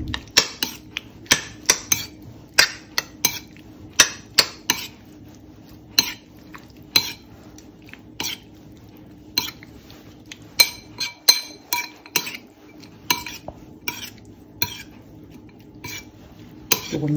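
A metal utensil stirring cooked shrimp in a bowl, clinking against the bowl in irregular sharp, ringing taps, about one or two a second.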